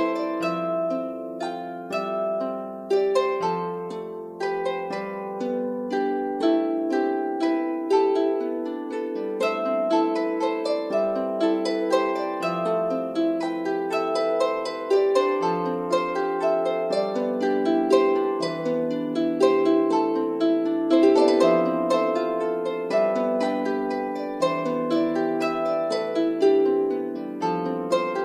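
Background instrumental music: a quick, steady run of plucked-string notes in a harp-like melody.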